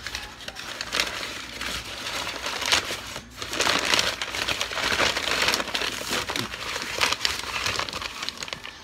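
A paper sack of tile adhesive being handled, its folded top gripped and crinkled, giving continuous paper crackling and crumpling with a brief pause about three seconds in.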